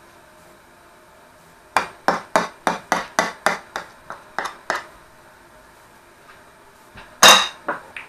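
Kitchen utensil knocking against a dish: a quick run of about a dozen sharp taps, about four a second, then a louder clattering knock with a short ring and two lighter knocks near the end.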